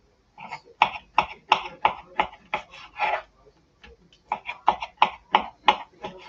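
Kitchen knife slicing through raw chicken breast fillets onto a plastic cutting board, in quick even strokes about three a second. The strokes come in two runs with a short pause between them.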